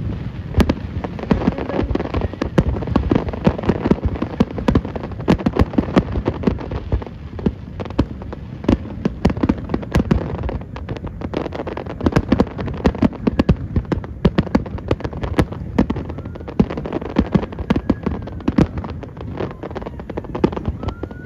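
Aerial fireworks display: a rapid, unbroken barrage of shell bursts, sharp bangs and crackling.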